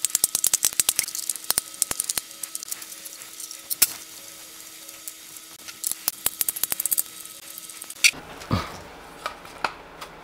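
A screwdriver backing screws out of 3D-printed plastic parts: runs of rapid clicking, then a few separate knocks of the plastic parts being handled near the end.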